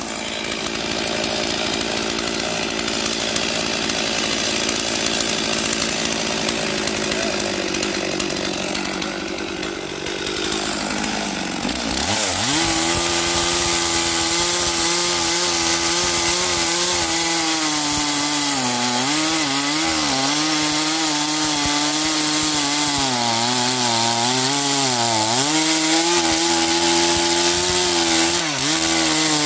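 Gas chainsaw ripping a log lengthwise along the grain. It runs steadily at first. About twelve seconds in it turns abruptly louder, and its pitch dips and recovers again and again as the chain bites into the wood under load.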